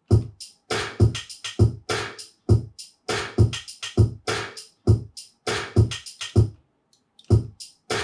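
A short trap-style drum loop played back from beat-making software, built from recorded kitchen sounds: a heavy kick made from a potato struck on a table, claps from a cutting board, and trimmed hi-hats. The pattern repeats steadily, with a short break near the end before it comes round again.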